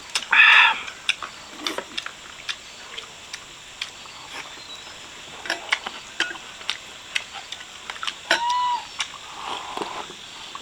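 Light clicks and taps of tableware during a meal, scattered irregularly. An animal calls twice over it, once near the start and a shorter, bending call about eight seconds in.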